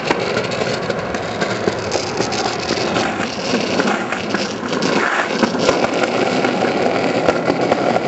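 City street traffic: car engines running and vehicles passing, a steady loud din.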